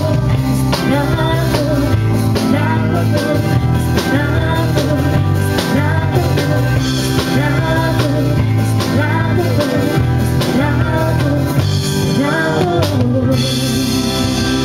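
Live rock band playing: a woman's lead vocal over electric guitar, bass guitar and drum kit. The singing stops near the end, leaving the band playing on.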